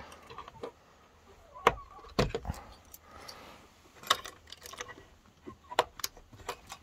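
Scattered sharp clicks and light metallic clinks, the loudest a couple of knocks about two seconds in, with a few more clicks in the second half.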